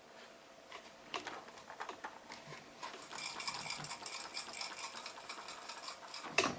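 A loose part rattling inside a US Medical Miami NE as the unit is shaken, a light irregular clatter like a baby's rattle that grows busier about halfway through. The rattle is the sign of something loose or broken inside, found on unpacking.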